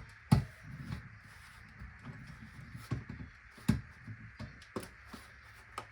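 Irregular knocks and clicks of hands working a bicycle tire onto its rim, the sharpest one about a third of a second in.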